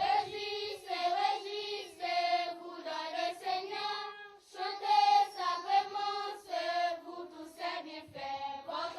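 A group of children singing together in high voices, holding notes in short phrases.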